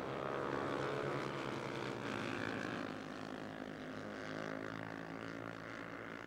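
A pack of Honda CB 300R single-cylinder racing motorcycles running past on the formation lap, many engine notes overlapping and sliding in pitch as the bikes go by. It is loudest in the first few seconds, then eases off.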